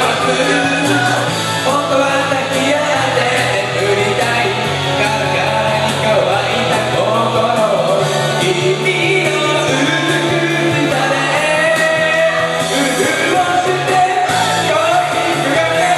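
Karaoke backing track of an upbeat rock song played loud through the room's speakers, with a voice singing along.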